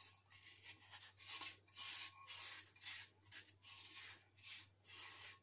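A spatula scraping powdered milk out of a bowl into a pan: a run of short, dry scraping strokes, about two a second.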